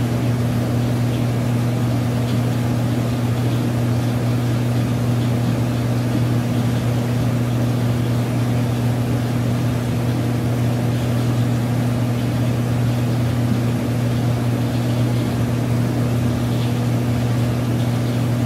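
Steady electrical hum of aquarium equipment: two low tones held without change over an even hiss.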